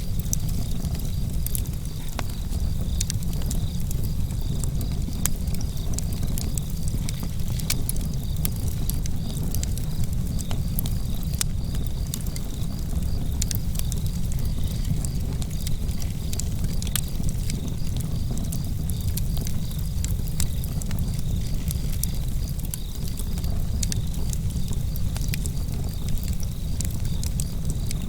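Fire burning in a fireplace: scattered sharp crackles and pops over a steady low rumble.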